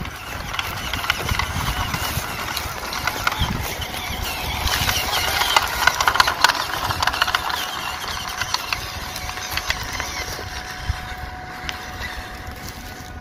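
WPL C24-1 RC crawler's low-RPM 180 electric motor and gearbox whining as the small truck crawls slowly over a dirt trail, louder for a couple of seconds in the middle. Scattered crackles of leaves and twigs come through with it.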